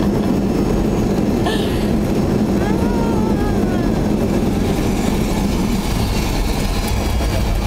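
Steady, loud cabin noise of a jetliner rolling out along the runway just after landing.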